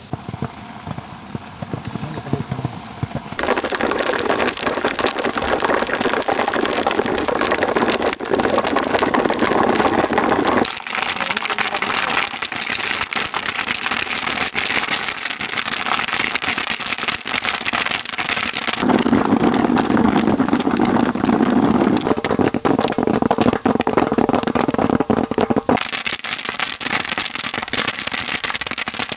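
Popcorn kernels popping in hot coconut oil in a wide metal pan: a dense, rapid run of sharp pops over a sizzle. It starts softer and becomes much louder about three seconds in.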